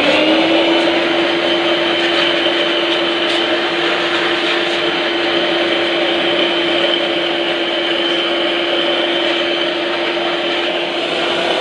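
A handheld electric cleaning tool's motor spins up quickly and then runs at a steady high pitch with a rushing of air, blowing or sucking dust out of a dirty desktop computer case.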